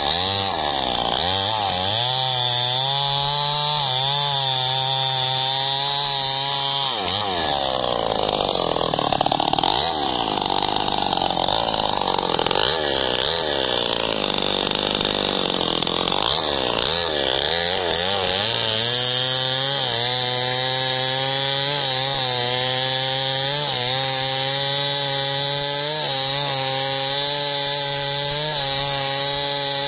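Two-stroke chainsaw with a long bar cutting into the base of a large tree trunk at full throttle. About seven seconds in it drops off and revs up and down several times as the saw is pulled out and repositioned, then holds steady at full throttle in the cut again from about eighteen seconds on.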